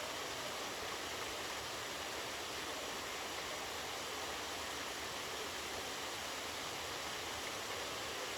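Steady rushing of water pouring down a waterfall.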